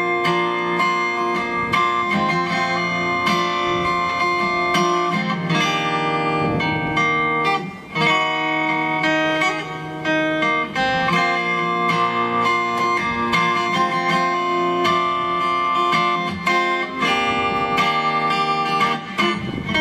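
Guitar playing an instrumental interlude of a song, a steady run of plucked notes and chords that ring on, with a brief dip about eight seconds in.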